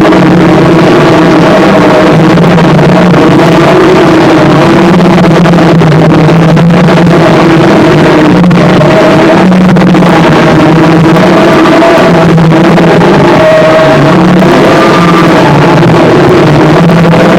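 Harsh noise music: a dense, heavily distorted wall of noise at full level, with wavering droning tones underneath that shift slowly without a beat.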